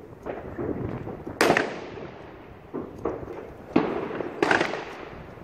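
New Year's Eve fireworks and firecrackers going off: about half a dozen sharp bangs at irregular intervals, each echoing and trailing off. The loudest comes about a second and a half in.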